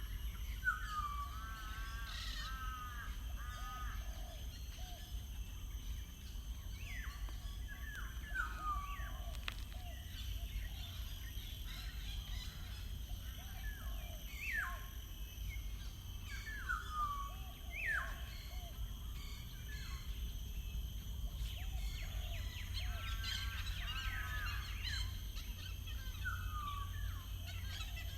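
Songbirds singing: short phrases of quick downward-sweeping and warbling notes, repeated every couple of seconds, over a steady low rumble.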